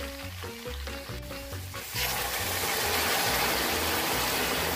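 Background music with a steady beat, then about two seconds in a sudden loud, steady sizzling hiss as water is poured onto meat seared in its own hot fat in a pot.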